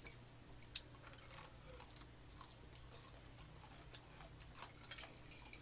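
Faint eating sounds: quiet chewing of fried chicken and small scattered clicks, with one sharp click a little under a second in.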